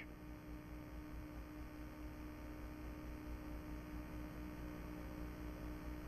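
Faint steady electrical hum with background hiss, with no other sound.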